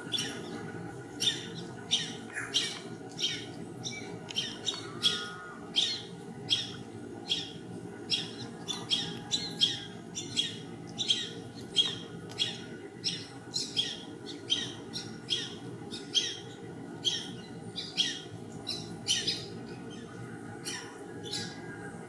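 Birds calling in a continuous string of short, sharp, squawky notes, about two a second, over a steady low background rumble.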